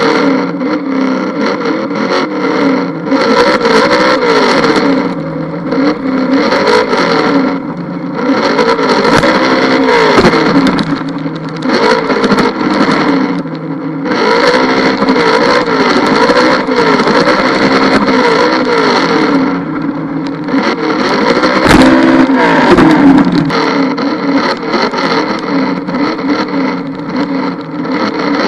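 Onboard sound of a Traxxas Slash 2WD RC truck being driven: its brushed 540-size electric motor and gearbox whining, the pitch rising and falling over and over with the throttle, with an occasional sharp knock.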